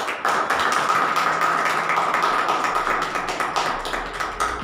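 A small group applauding, many hands clapping together, easing off slowly toward the end.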